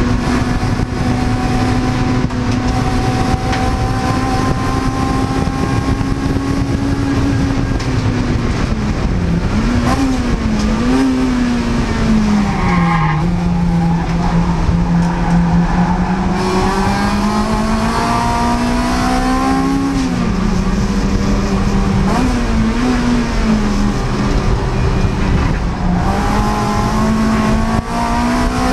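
Honda Civic Type R (EP3) race car's 2.0-litre four-cylinder engine running hard at racing speed. It holds high revs, then drops with quick downshifts about eight to eleven seconds in, pulls from lower revs through the middle and climbs again, with another gear change a little after twenty seconds.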